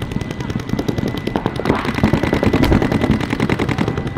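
Paintball markers firing in fast, continuous streams of shots, loudest around the middle.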